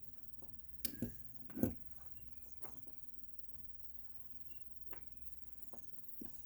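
Small clicks and taps of stiff wire and hand tools being handled at a workbench, with a few louder knocks in the first two seconds and scattered light ticks after.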